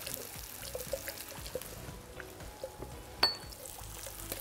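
Wire whisk stirring a butter, lemon and cream sauce in a frying pan: light ticks of the wires against the pan, with one sharper metallic clink that rings briefly about three seconds in.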